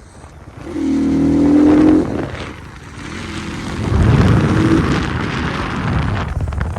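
Motor vehicle engine running loudly. A pitched sound sliding slightly down comes at about a second in, then a deep rumble swells about four seconds in.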